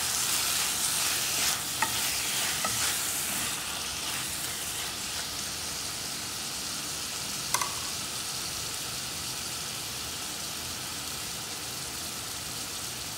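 Squid pieces sizzling in hot oil in a nonstick pot as they are stir-fried with a spoon. There are a few sharp knocks of the spoon against the pot. The sizzle is louder for the first few seconds, then settles to a steady hiss.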